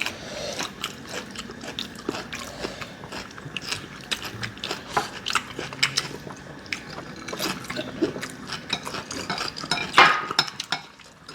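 Irregular clicks and taps of cutlery against bowls as people eat noodles, with a louder clatter about ten seconds in.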